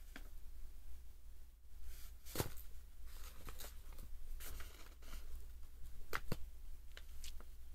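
Cellophane-wrapped cigarette packs being handled and set down among other packs in a cardboard box: scattered light clicks and taps with some crinkly rustling, the sharpest click about two and a half seconds in. A faint low hum runs underneath.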